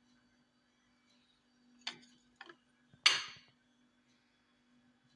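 Kitchen clinks: two light clicks about two seconds in, then one sharp clink about three seconds in that rings briefly, like glassware being handled or set down.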